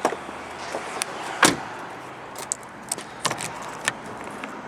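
Car keys jangling, with a series of short clicks and knocks from handling the key and car, the loudest about a second and a half in.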